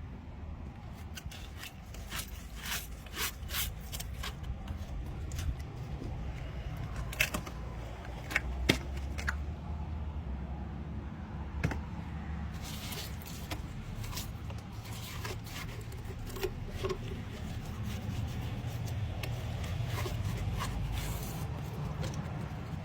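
Handling and work noises: scattered clicks, taps and knocks, with a short scraping stretch about thirteen seconds in, over a steady low rumble.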